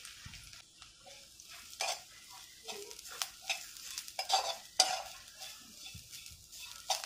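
Dry coconut being stirred and roasted in a little oil in a kadhai: a light sizzle, with irregular scrapes and taps of the stirring utensil against the pan.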